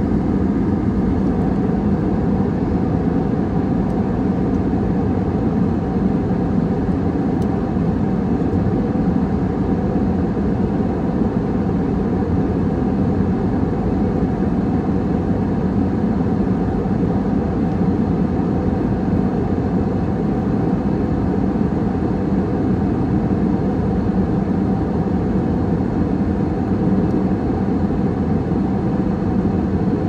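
Steady cabin noise of a jet airliner in cruise, heard inside the cabin: an even low rush of engine and airflow noise with a faint steady hum running under it.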